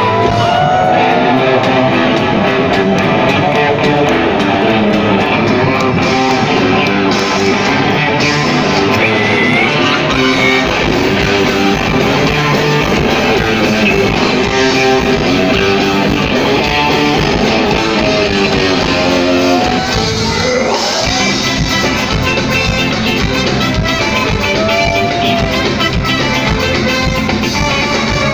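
A ska-punk band playing live, loud, with electric guitars to the fore, heard from within the crowd.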